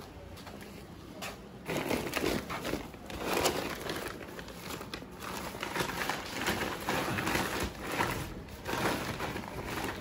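Plastic and woven feed sacks rustling and crinkling as they are handled and shifted about, in uneven bursts from about two seconds in.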